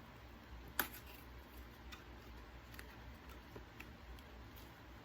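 Faint, scattered clicks and taps from a packaged poster being handled and opened, with one sharper click about a second in.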